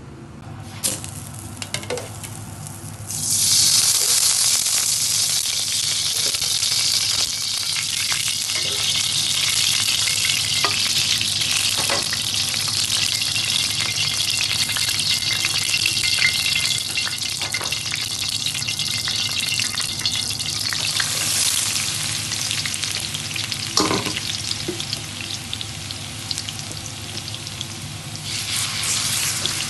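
Food frying in hot oil in a pan, a loud steady sizzle that starts suddenly about three seconds in, with occasional knocks and scrapes of a spoon stirring it.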